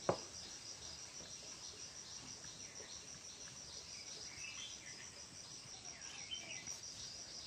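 Insect chirping: a steady, high, rapidly pulsing trill, with one sharp click right at the start and a few faint short chirps now and then.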